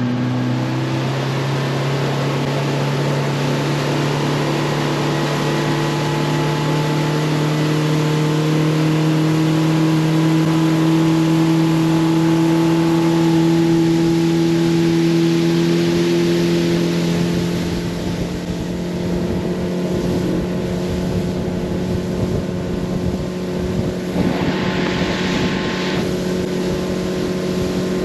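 Motorboat's outboard motor running steadily at speed after revving up, its pitch creeping slightly higher, over a constant rush of water and wind. A brief louder hiss comes about three-quarters of the way through.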